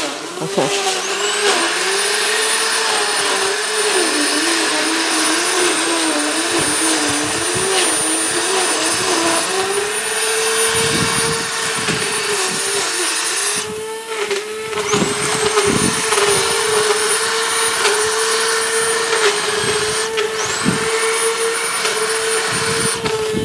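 Corded electric hedge trimmer running as it cuts into a bush, a steady motor whine whose pitch sags and wobbles as the blades take the load. The whine drops out twice, for about a second each time, and starts again.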